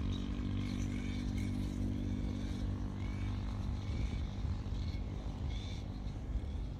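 A motor hums steadily and fades away over the first two seconds, over a constant low rumble. Short high chirps recur about once a second.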